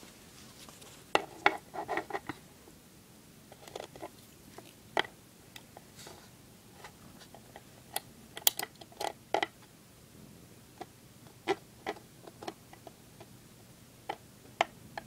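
Handling noise: irregular clicks, taps and soft rubs as a hand fumbles with the phone and the skateboard, in small clusters with short gaps between.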